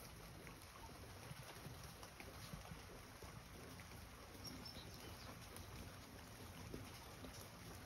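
Near silence: a faint, steady outdoor background hiss with a few soft, scattered ticks.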